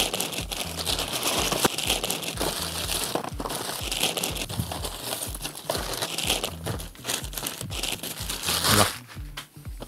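Parcel packaging crinkling and rustling as it is handled and opened, a dense crackle of small clicks that dies down near the end.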